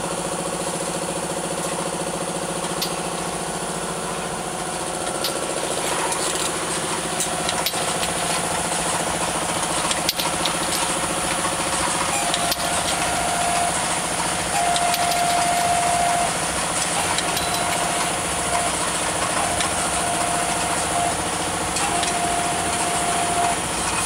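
FJZ-4 vial powder filling, stoppering and capping machine running: a steady mechanical hum made of many tones, with scattered light clicks. From about halfway through, a higher steady tone comes and goes.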